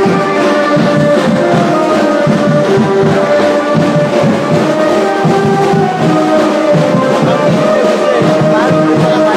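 Loud band music: brass horns playing a melody of held notes over steady drumming.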